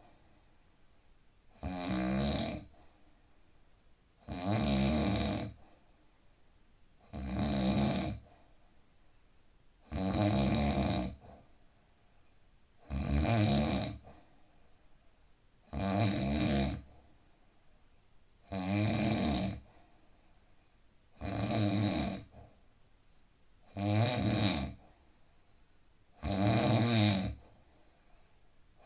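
A man snoring heavily and regularly. Each snore lasts about a second and comes about every two and a half to three seconds, with quiet breathing gaps in between.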